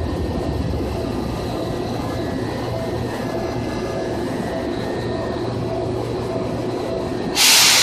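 Running sound of a 2000 series train: a steady rumble of wheels on rail with a few faint steady tones over it. Near the end comes a sudden loud hiss that fades slowly.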